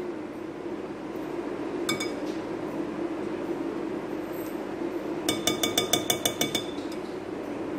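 Metal spoon clinking against glass: one ringing clink about two seconds in, then a quick run of about eight taps near the end as the spoon is knocked against the bowl to drop in condensed milk. A steady low hum runs underneath.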